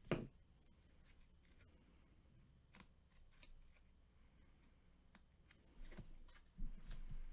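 Quiet handling sounds of sports cards in plastic holders: one sharp click right at the start, then scattered faint clicks and taps, a little busier near the end.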